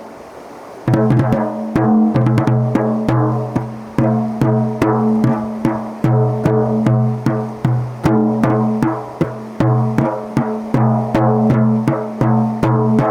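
Instrumental background music of ringing, struck percussion notes in a steady rhythm, a few strikes a second, starting up about a second in after a short pause.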